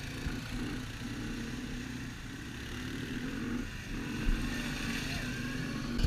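Engine of an off-road vehicle running on the move, the throttle easing off briefly a few times.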